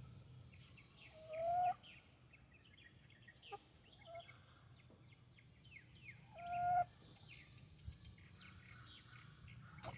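Chickens calling twice, each a short rising squawk, over the steady quick chirping of small birds.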